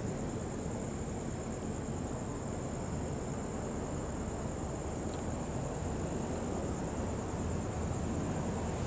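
Steady high-pitched trill of crickets over a low, even rumble that grows slightly louder near the end.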